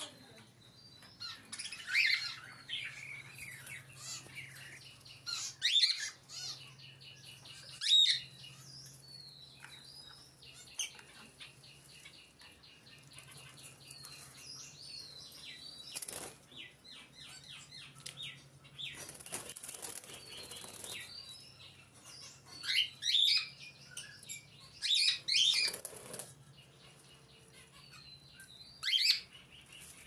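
Caged pet budgerigars and finches chirping and calling, with a sharp loud call every few seconds, quick runs of short repeated chirps, and fluttering wings.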